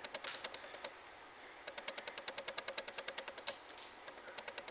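Light, rapid clicking on a hard vinyl floor as a kitten plays with a tinsel ball: scattered clicks, then a fast run of about ten clicks a second from about two seconds in to past three seconds, and a few more near the end.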